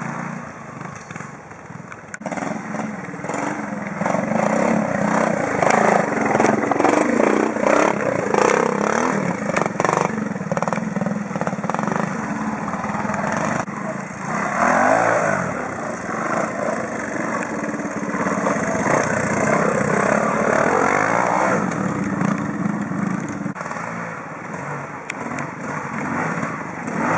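Classic trials motorcycle engines working up a rocky climb, revs rising and falling as the riders blip the throttle over steps and rocks.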